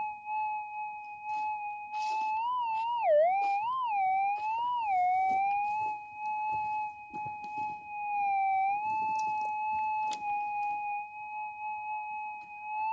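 Minelab GPZ 7000 metal detector with a GPZ 19 coil, its steady threshold hum rising and falling in pitch several times as the coil sweeps over the dug-out dirt: the response to the gold target. The biggest swings in pitch come a few seconds in.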